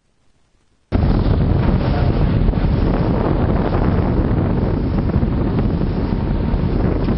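Near silence, then about a second in a sudden cut to loud wind buffeting the microphone over the rush of sea water past a moving boat.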